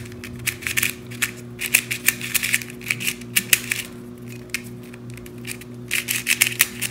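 Mini 2x2 plastic keychain puzzle cube being turned by hand: quick runs of clicking, scratchy clacks as the layers turn, in bursts with a lull a little past the middle. The cube is stiff, tough to turn and scratchy.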